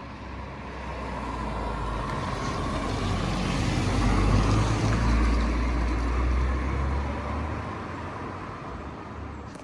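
A car's engine and road noise rising to a peak about halfway through, then fading, as of a car driving past.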